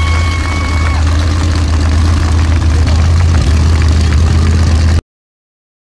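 Formula Offroad buggy's engine running with a loud, steady low drone as the car climbs a steep dirt hill; the sound cuts off abruptly about five seconds in.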